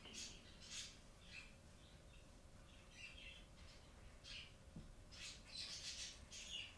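Broad-tip marker squeaking and scratching on paper in short, irregular strokes as a letter is drawn, faint, with a cluster of strokes near the end.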